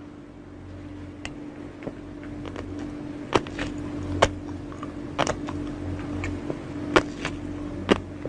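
Close-up mouth sounds of someone chewing a mouthful of green flying-fish roe, the tiny eggs popping between the teeth in sharp, irregular clicks. A steady low hum runs underneath.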